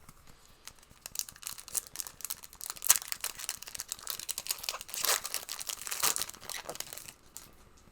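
Foil trading-card pack wrapper crinkling and tearing as it is opened by hand: a dense run of quick crackles that starts about a second in and dies away near the end.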